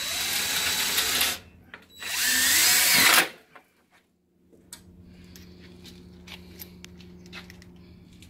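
DeWalt cordless drill driving screws into a screen door's mounting channel: two loud runs of the motor of about a second each, the second ending about three seconds in.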